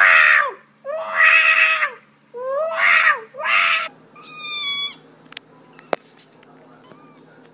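Cat yowling: four long, loud, drawn-out meows one after another, then a thinner, higher-pitched meow about four seconds in. Two short sharp clicks follow.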